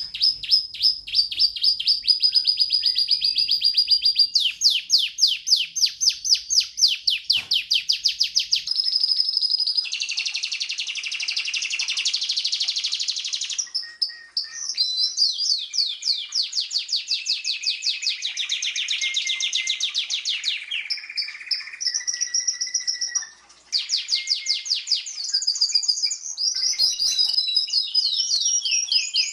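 Domestic canary singing a long, continuous song of rapid trills, each phrase a fast run of repeated high notes, switching to a new trill every few seconds, with a harsher buzzy roll about ten seconds in.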